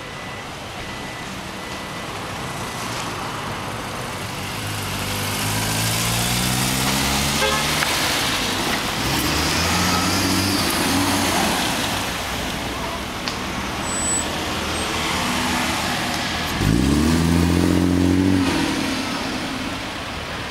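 Street traffic: car engines passing and pulling away, rising in pitch as they accelerate, with one louder vehicle starting up sharply near the end and running for about two seconds.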